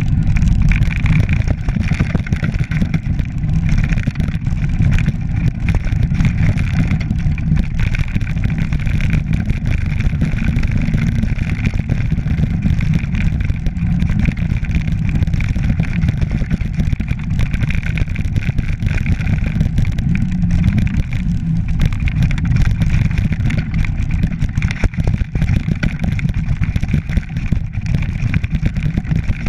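Mountain bike descending a rough, rocky stone track: tyres crunching and rattling over loose rock. A constant loud, low rumble of wind and vibration lies under it.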